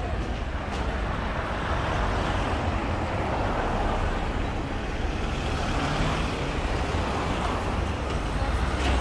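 Steady road traffic: motor vehicles running past, a low engine rumble under a continuous wash of tyre and road noise.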